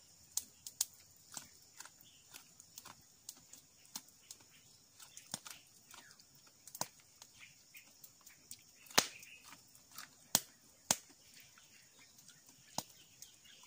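Small open wood fire crackling: irregular sharp snaps and pops, with a few louder ones about nine to eleven seconds in.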